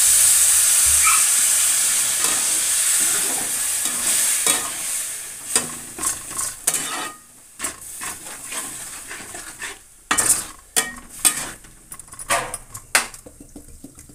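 Water hitting hot oil and spices in a metal kadhai, sizzling with a loud hiss that fades away over the first few seconds. Then a metal spatula scrapes and knocks against the pan as the vegetables are stirred, with sharp clinks in the second half.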